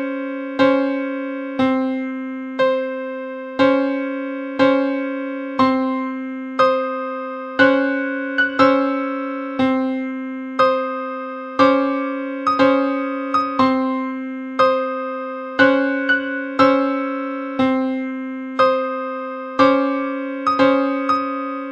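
Electric-piano-style keyboard music made with free software: the same chord struck about once a second, each strike fading, with a few quick double strikes, recorded through a cheap microphone.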